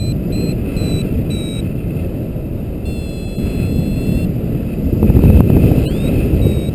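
Wind rushing over the microphone of a paraglider in flight. Over it, a paragliding variometer gives high electronic beeps: a quick run of short beeps at the start, a held tone about three seconds in, and a beep rising in pitch near the end.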